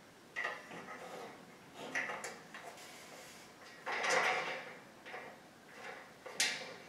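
Metal platform bed frame parts being fitted by hand: a few short scrapes and clinks of steel rubbing and knocking together, with a longer, louder scrape about four seconds in and a sharp click near the end.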